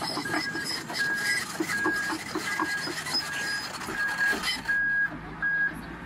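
A bulldozer's reversing alarm beeping in a steady rhythm, about three beeps every two seconds, over the clanking of its steel crawler tracks. The beeping stops shortly before the end.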